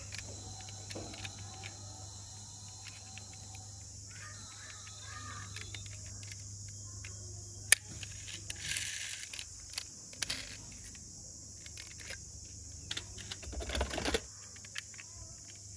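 Small clicks and taps of a die-cast metal VW Beetle toy car being handled, with one sharp click about eight seconds in, then a clatter of toy cars being rummaged in a plastic basket near the end. A steady high insect buzz runs underneath.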